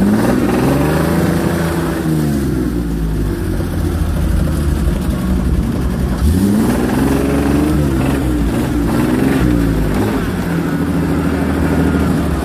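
Toyota FJ40 Land Cruiser's engine revving up and down as the 4x4 works along a rough, rutted dirt trail, its pitch rising and falling several times.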